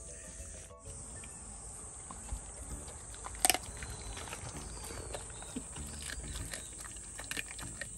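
A pet chewing and crunching raw chicken, with scattered wet clicks and one sharp crunch about three and a half seconds in. A steady high insect buzz runs behind it.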